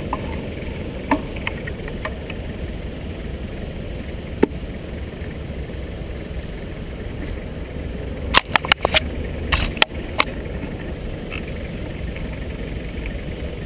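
Steady rumble of passing city road traffic. About four seconds in there is one sharp click, and a quick cluster of clicks and knocks falls between about eight and ten seconds in.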